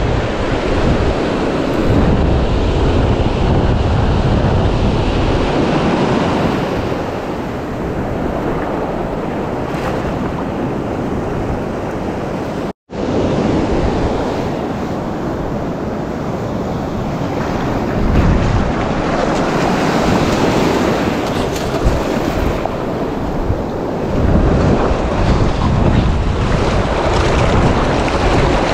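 Surf washing on the shore with wind buffeting the microphone, a steady rushing noise with gusty low rumble. The sound cuts out completely for a moment about thirteen seconds in.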